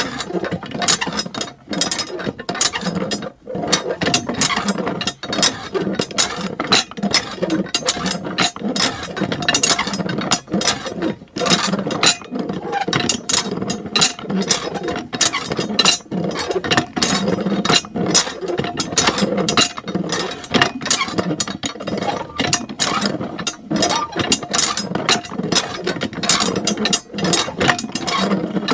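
Miniature DIY hand pump worked by its lever, its mechanism giving a dense, continuous run of rapid clicks.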